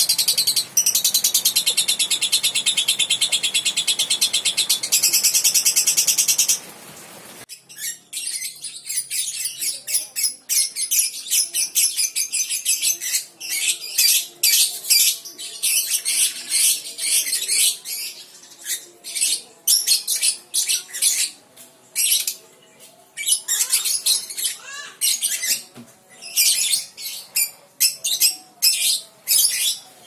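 Young lovebird making its long, fast chattering trill ('ngekek') for about six and a half seconds. It cuts off suddenly, and after a brief lull the bird goes on with quick, irregular high chirps and short chatters.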